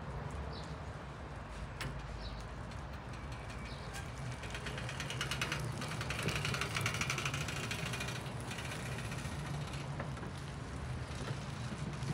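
Electric three-wheeled cargo bike rolling past on wet asphalt: a tyre hiss with a fast fine ticking that swells as it passes close, about six to seven seconds in, then fades as it rides away. A steady low hum runs underneath.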